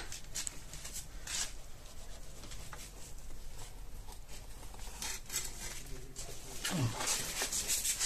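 Irregular rustling and scraping of a snake hook being worked down behind stacked cardboard tile boxes against a wall to pull out a spectacled cobra, growing busier after about five seconds.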